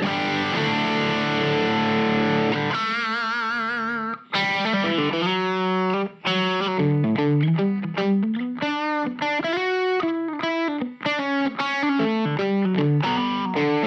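Distorted electric guitar, a Fano Omnis MG6, played through an LPD Pedals Eighty7 Marshall-style amp-in-a-box drive pedal with every knob at 12 o'clock. A chord rings out, then a note is shaken with vibrato about three seconds in, followed by a run of single-note riffs and short chord stabs.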